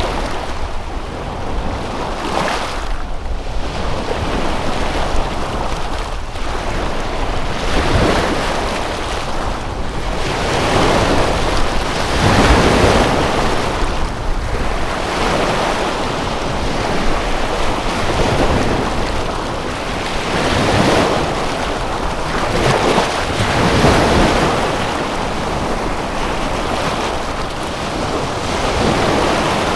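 Waves washing onto a shore, surging and easing every few seconds.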